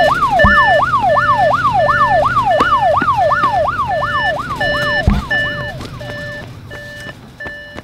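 Police siren on a fast up-and-down yelp, its pitch sweeping about three times a second under a pulsing higher tone. About five seconds in the sweep stops and only the pulsing tone is left, and the siren fades away.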